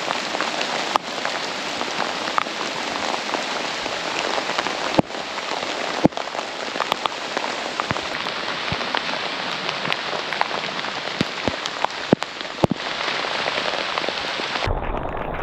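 Heavy rain falling steadily, with scattered sharp ticks of drops close to the microphone. Near the end the sound turns duller, with a low rumble.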